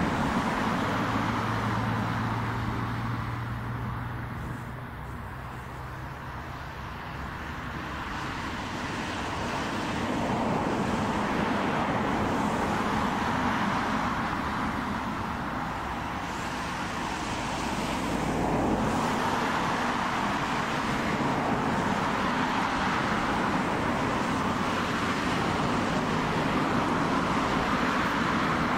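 Boeing 737 airliner's two jet engines running on the runway: a steady jet noise that fades a few seconds in and swells back, with a low steady hum early on.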